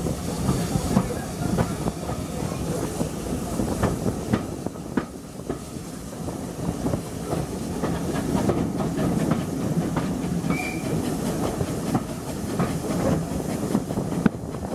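Steam-hauled passenger coaches running along the line, heard from a carriage window: a steady rumble with the wheels clicking and clattering over the rails and the coaches rattling.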